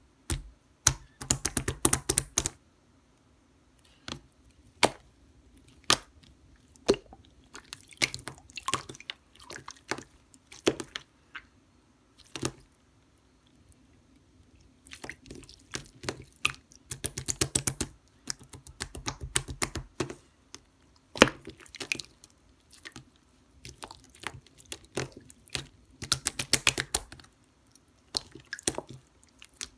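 Hands squeezing and pressing slime, making wet squishes and sharp popping clicks as air pockets burst. The clicks come in dense bursts with quieter gaps between.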